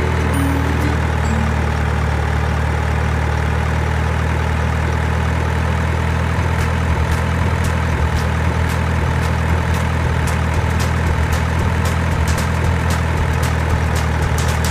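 A heavy engine idling steadily, with a run of sharp clicks from about halfway through.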